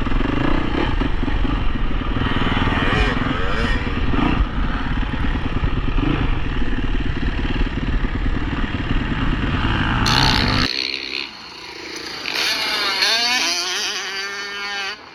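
Dirt bike engine running under loud, rumbling noise for about ten seconds. After an abrupt change, the engine is heard revving, its pitch rising and falling repeatedly.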